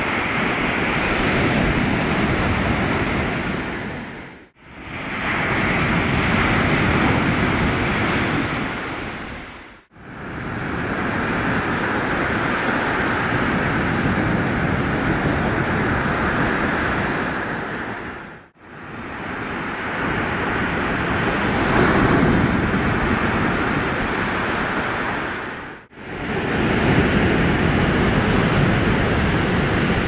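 Rough Black Sea surf: waves breaking and washing up the beach in a continuous rush of water noise. It drops out abruptly for a moment four times.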